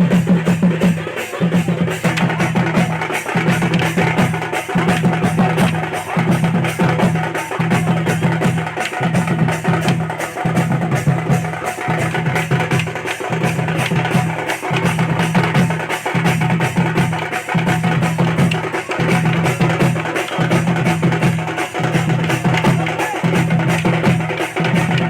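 Loud music with heavy drumming: a deep beat repeating about every second and a half under a fast, dense run of sharp percussion strokes.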